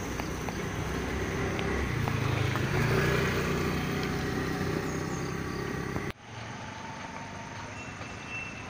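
A road vehicle's engine rumble swells and eases off over a steady hiss of outdoor noise. About six seconds in, an abrupt cut leaves a quieter steady hiss.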